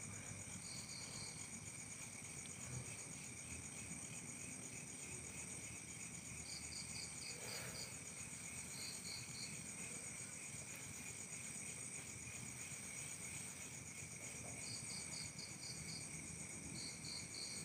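Faint night chorus of insects: a steady, high-pitched cricket trill, with another insect chirping in short runs of quick pulses that come back every few seconds.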